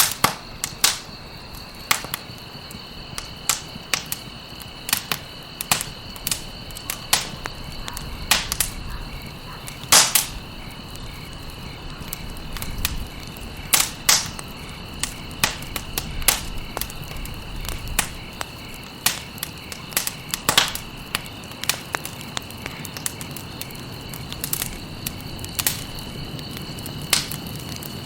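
Wood fire crackling, with irregular sharp pops over a low, steady rumble of flames; the loudest pop comes about ten seconds in. A steady high-pitched whine runs underneath.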